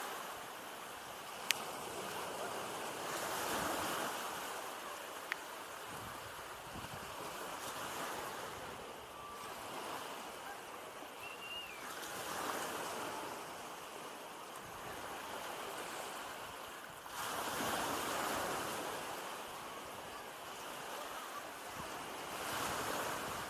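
Small North Sea waves breaking and washing up on a sandy beach, the surf swelling every four to five seconds. Two brief sharp clicks fall in the first five seconds.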